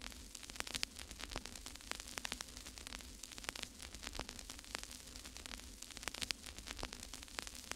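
Dense, irregular crackles and pops over a steady hiss and a low hum.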